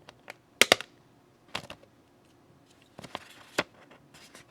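Sun-Star compact stapler being worked by hand, clicking as its staple hammer is shifted to the offset position. There is a loud double click under a second in, then scattered single clicks.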